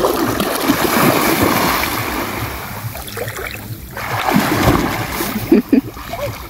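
Sea water splashing and churning as a person wades quickly into shallow water and swims a few strokes, strongest over the first three seconds, then dropping to quieter sloshing and a few small splashes as he stops and stands.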